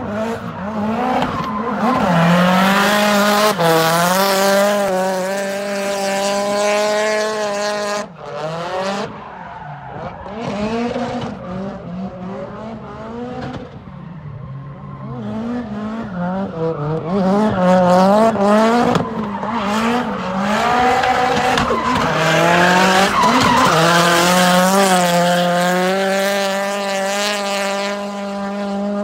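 Car drifting around a skidpad: the engine is held at high revs while the spinning rear tyres squeal and smoke. Engine pitch steps up and down with the throttle, drops off sharply about eight seconds in, wavers, then climbs back and holds high and steady near the end.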